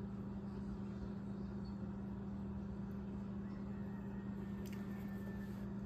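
A steady low hum over faint background hiss, with a faint tick near the end.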